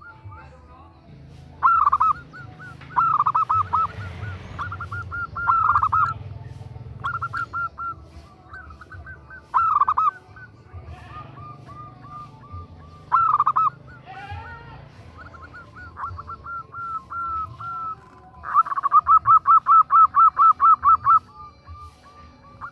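Female zebra dove (perkutut) calling to a male: short bursts of quick cooing notes repeated every second or two, then near the end a longer run of about a dozen quick, even notes. A steady low hum sits underneath.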